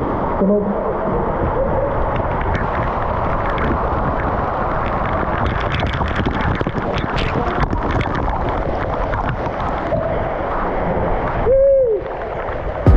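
Water pouring from a cave ceiling onto a pool, a steady muffled rush with spattering splashes. Near the end comes one short yell that rises and falls in pitch.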